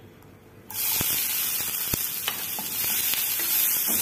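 Chopped green capsicum hitting hot oil in a kadhai: a loud sizzle starts suddenly a little under a second in and keeps going steadily, with a few sharp knocks of a wooden spatula stirring the pieces.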